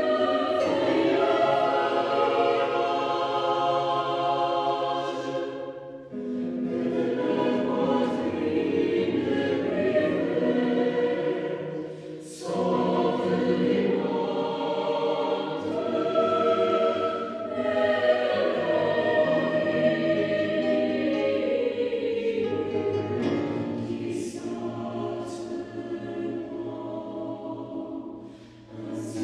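Choir singing a contemporary choral work in sustained chords. Phrases break off briefly about six and twelve seconds in and again near the end, with crisp 's' consonants.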